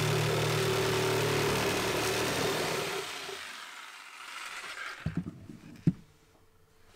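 Black & Decker jigsaw cutting through a 3/4-inch bulkhead, its motor running steadily for about three seconds and then winding down as the cut is finished. A couple of sharp knocks follow near the end.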